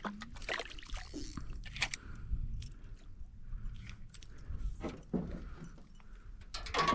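Fishing tackle handled in a boat: scattered light metallic clicks and jingles at irregular intervals, over a low wind rumble.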